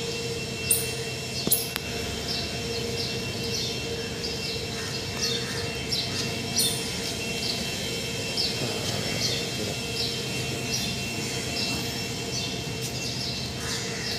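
Outdoor city street ambience: a steady mechanical hum with a held high whine runs under short high chirps that recur every second or so. A few sharp clicks come in the first couple of seconds and again about six seconds in.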